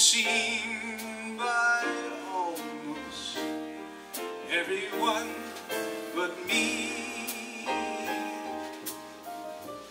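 Live jazz trio of piano, upright bass and drums playing behind a man singing into a microphone, with frequent cymbal and drum hits.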